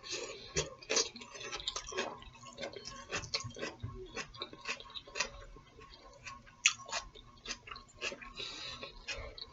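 A person chewing food close to the microphone, with many small, irregular clicks.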